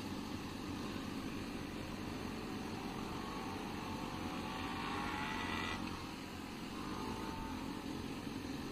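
Motorcycle riding heard from the rider's own bike: a steady drone of engine and wind. A rising engine whine climbs from about three seconds in and cuts off sharply near six seconds.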